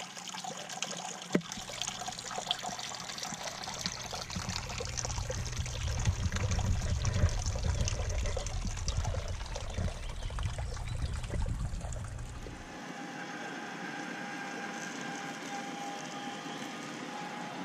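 Water trickling and splashing in a small garden barrel fountain, running from a spout into wooden tubs, over a low rumble. About 13 seconds in it gives way to a quieter, steady hum with a few even tones from the rotisserie spit motor of an old gas suitcase grill.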